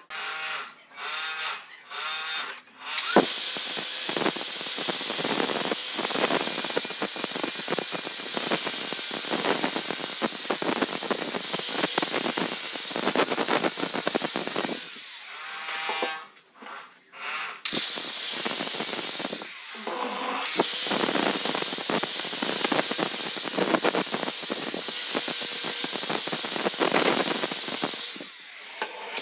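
Angle grinder's abrasive disc grinding rust off a steel crowbar shaft: a loud, steady, hissing grind of abrasive on metal. It starts about three seconds in, breaks off for a couple of seconds around the middle, then resumes.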